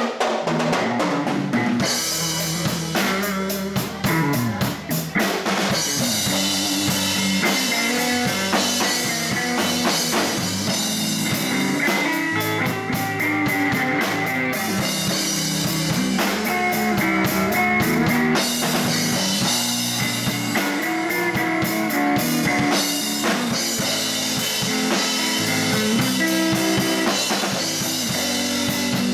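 Live blues band playing: amplified electric guitar and electric bass over a drum kit keeping a steady beat with bass drum and rimshots.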